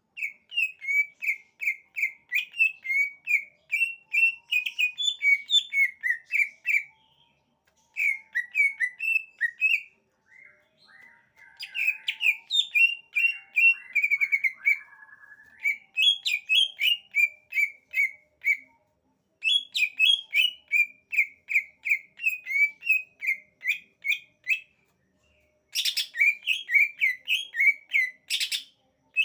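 Cucak ijo (green leafbird) singing: long runs of quick, repeated whistled notes, about three a second, broken by short pauses, with a lower, gliding phrase in the middle. Two brief sharp noises near the end.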